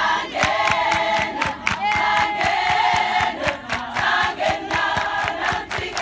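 A large women's choir singing a chorus together in long, held notes, with sharp rhythmic claps keeping the beat.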